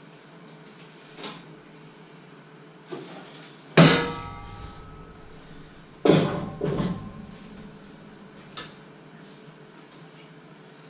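Metal clanks and clatters at an oven as a heavy cast-iron pot and the oven rack are handled. There is a loud ringing clank about four seconds in and two more clatters about two seconds later, with lighter knocks before and after.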